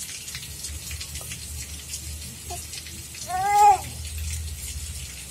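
A baby gives one short, high-pitched squeal a little over three seconds in, rising then falling in pitch, over a steady background hiss.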